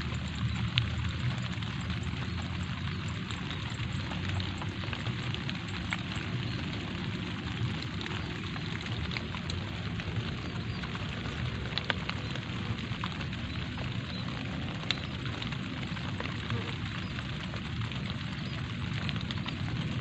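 Light rain falling steadily: a constant hiss dotted with sharp single drop ticks, over a steady low rumble.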